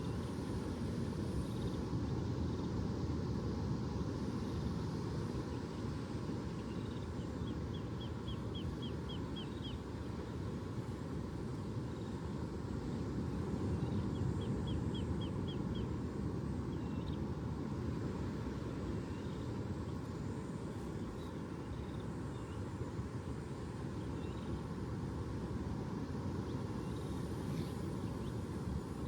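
Steady low outdoor rumble that swells slightly about halfway through. A small bird gives two short, rapid trills of about eight notes each, the first a third of the way in and the second near the middle.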